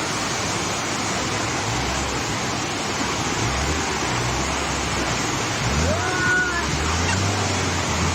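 Heavy rain pouring down in a steady, loud hiss. A low engine hum joins in about halfway through, and a brief gliding tone sounds a little later.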